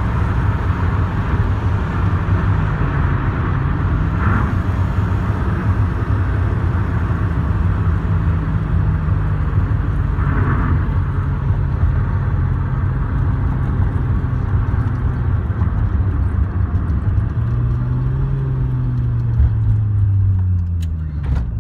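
Alfa Romeo GTV6's V6 engine heard from inside the cabin. It runs at a steady cruise, then its note slowly drops as the car coasts and slows. Near the end the engine note swells up and back down once, then falls away as the car slows for a stop.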